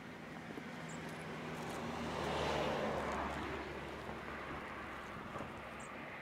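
A road vehicle passing by: its noise swells to a peak about two and a half seconds in and then fades away.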